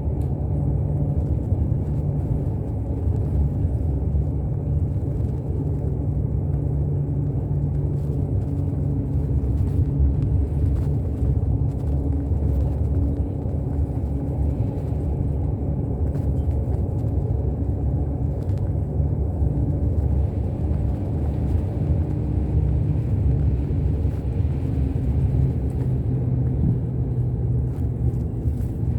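Inside a route bus on the move: the engine drones steadily under a constant low road rumble.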